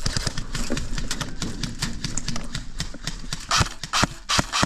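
Rapid ratcheting clicks from an airsoft high-capacity magazine being wound by its thumb wheel, with a couple of louder clicks near the end.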